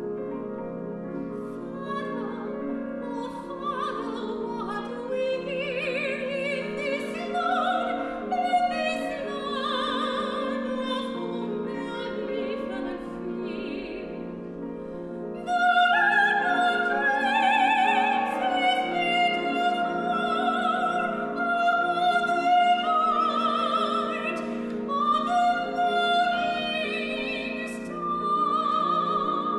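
Soprano singing a contemporary classical art song with vibrato over sustained piano accompaniment. The voice comes in about two seconds in and enters again suddenly louder about halfway through.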